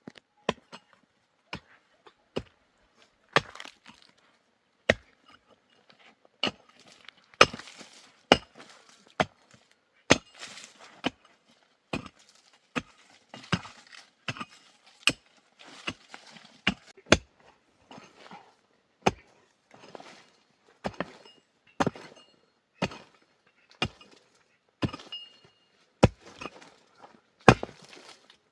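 Wood being chopped: sharp blows land roughly once a second, unevenly spaced, and many are followed by a short crackle.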